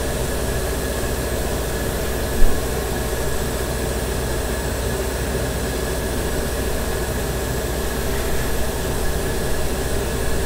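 Airbrush spraying primer: a steady hiss of air with the constant hum of its compressor running. One brief thump about two and a half seconds in.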